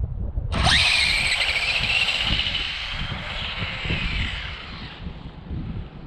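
Electric RC drag car launching down the strip: its motor's whine shoots up in pitch about half a second in, then holds high and slowly falls and fades as the car runs away. Wind rumbles on the microphone underneath.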